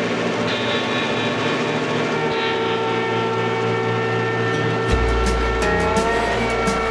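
Background music: steady held tones, then a bass and drum beat comes in about five seconds in.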